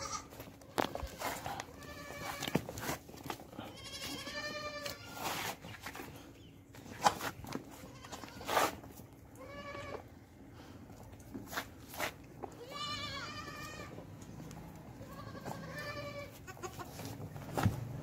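Goats bleating, about five separate calls spread through, mixed with a few sharp knocks, two of them louder than the calls.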